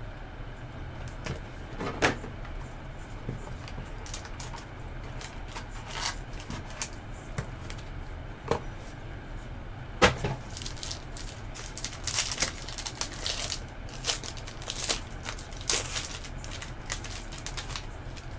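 A sealed trading-card box being slit open with a box cutter and its packaging handled: scattered taps and knocks, one sharp knock about halfway through, then bursts of crinkling plastic and foil wrapping in the second half.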